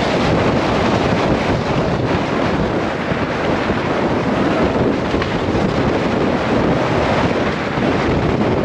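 Loud, steady wind rushing over the microphone of a camera on a mountain bike speeding down a dirt forest trail, with tyre and trail rumble mixed in.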